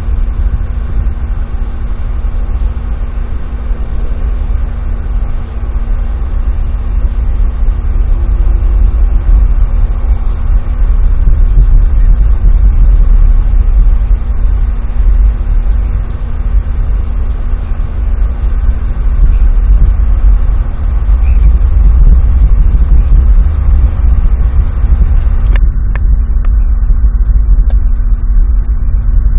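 Wind buffeting the outdoor camera microphone, a loud gusty low rumble with a steady faint hum underneath. Two brief clicks come near the end.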